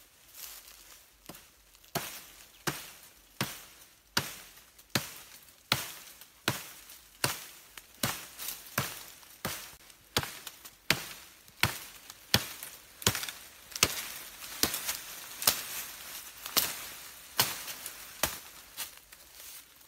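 Knife blade chopping at the base of a thin woody stem: an even run of sharp strikes, about three every two seconds, starting about two seconds in.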